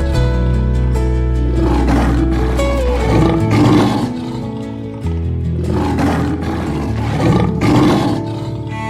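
An animal roaring several times in a row over background music with sustained low notes.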